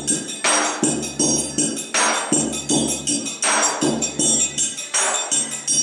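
Bass drum and triangle playing a steady rhythm together: low drum thumps under the triangle's bright ringing strokes, with a strong accent about every second and a half.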